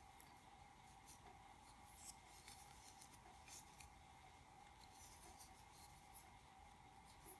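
Near silence: faint, scratchy rustles and small ticks of a metal crochet hook working single crochet stitches through worsted-weight yarn, over a faint steady hum.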